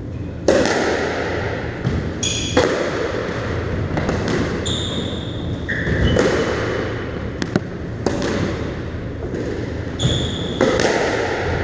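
Squash balls struck by rackets and smacking off the walls and wooden floor of a squash court: a string of sharp hits, each ringing with a hard echo, mixed with brief high squeaks from shoes on the floor.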